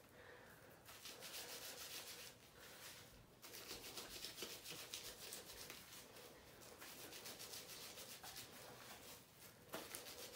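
Fingers massaging lathering colour-depositing shampoo into a section of wet hair: a faint rubbing made of quick, repeated strokes.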